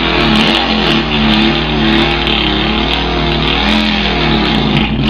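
A person imitating a Volkswagen engine with his mouth: a buzzy drone that wavers up and down in pitch and cuts off near the end, mimicking the engine stalling.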